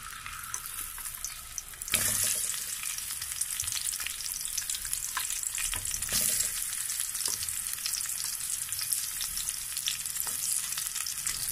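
Sliced onions sizzling as they are dropped by hand into hot cooking oil in a metal pot. The sizzle gets louder about two seconds in as more onion goes in, with small pops and crackles throughout.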